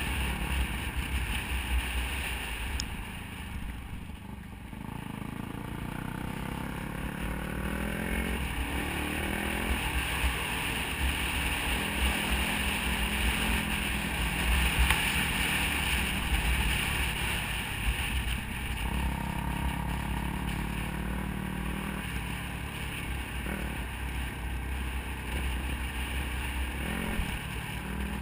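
Dirt bike engine running under way, its revs rising and falling as the throttle and gears change, with wind buffeting the microphone.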